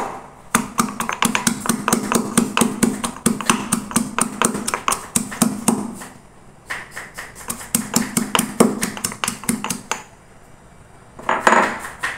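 Garlic cloves being crushed by pounding: rapid repeated strikes, about five or six a second, in two long runs broken by short pauses.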